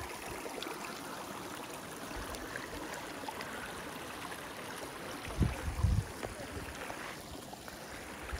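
Small mountain stream running steadily over rocks. Two low thumps a little past halfway.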